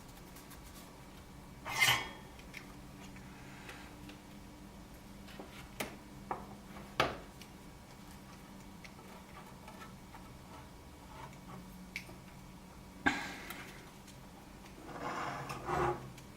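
Small metal tools clinking and scraping during circuit-board soldering work: a few sharp clinks several seconds apart and a brief scraping rub near the end, over a faint steady hum.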